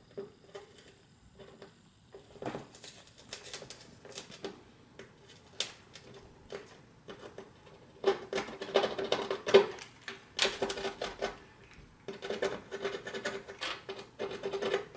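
Rapid irregular scratching and clicking of a small hand tool working on a TV's LED backlight strip to remove a dead LED, busier in the second half.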